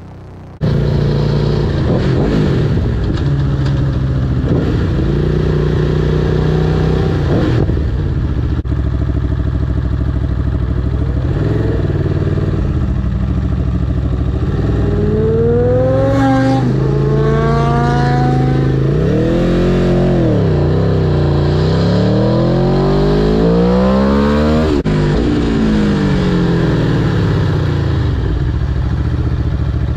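Sport motorcycle engine running hard under way, starting abruptly about half a second in. In the second half it revs up and down repeatedly in a series of rising and falling pitches as the rider accelerates, shifts and rolls off the throttle.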